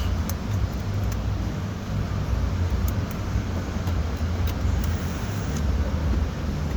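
Steady low background rumble with a few faint light clicks scattered through it.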